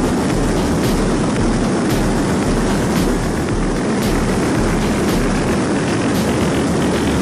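Air Tractor AT-602 crop-duster in flight: steady turboprop engine and propeller noise mixed with heavy wind rush over the wing-mounted camera.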